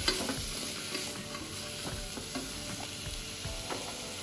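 Wooden spatula stirring chickpeas and chopped vegetables in a steel pressure cooker, with scattered light scrapes and knocks against the metal over a faint sizzle of the oil.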